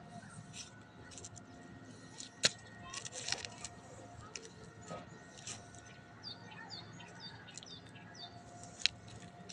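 Birds chirping faintly in short calls, with scattered clicks; two sharp clicks stand out, about two and a half seconds in and near the end.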